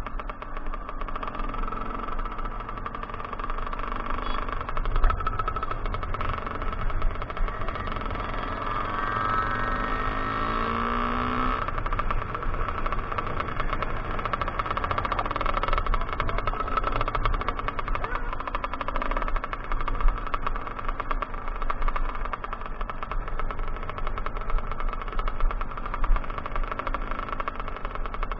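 Kawasaki KX 125's two-stroke single-cylinder engine running while riding over gravel, with wind rumbling on the microphone. Around ten seconds in, the engine note glides in pitch as the throttle changes.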